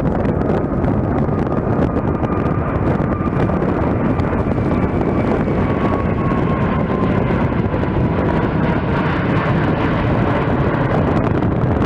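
Twin jet engines of an EVA Air Cargo Boeing 777 freighter running at climb power just after takeoff, a loud steady rumble. A faint whine slides slowly down in pitch as the jet passes overhead.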